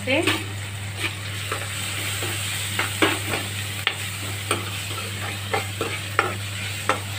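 Spatula stirring chopped onion, capsicum and spice powder frying in a metal kadai: a steady sizzle with irregular scrapes and clinks of the spatula against the pan, about one or two a second.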